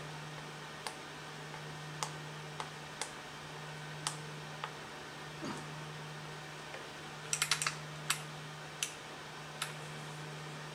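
Plastic button clicks from an NVMPG handheld CNC pendant as its keys are pressed one at a time, with a quick run of about five clicks around seven and a half seconds in. A steady low hum runs underneath.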